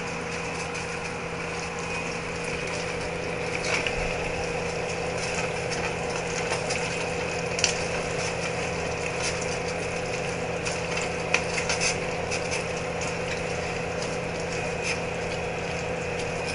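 Spoon stirring a chunky stew in a metal pot, with scattered small scrapes and clicks against the pot, over a steady mechanical hum.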